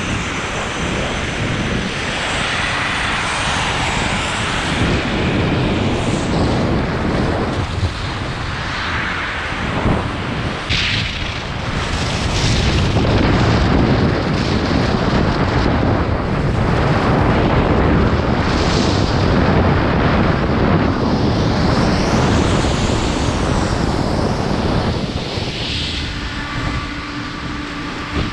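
Wind rushing over a pole-mounted action camera while skiing downhill, with skis scraping and hissing on packed snow and recurring brief louder swishes as the skis turn.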